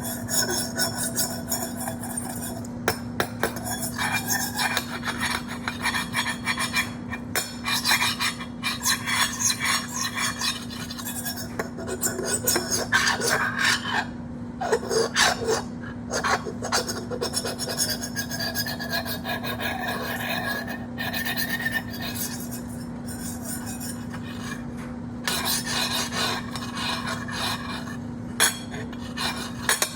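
Irregular scraping and rasping strokes over a steady low hum.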